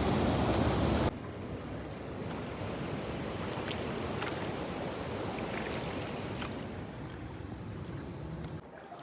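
Wind buffeting the microphone for about a second, cutting off suddenly, then quieter water sounds around a small boat with a few light splashes.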